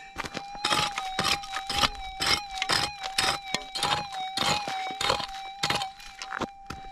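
A prospecting pick striking and scraping into hard, stony ground, about two or three blows a second, over the steady, slightly wavering tone of a gold detector lying nearby.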